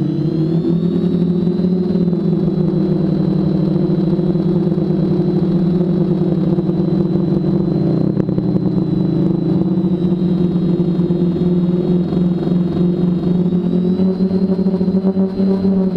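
Quadcopter's brushless motors spinning 10x4.5 propellers in flight, a steady buzzing hum whose pitch steps up and down as the throttle changes: up just after the start, down slightly about halfway, and up again near the end.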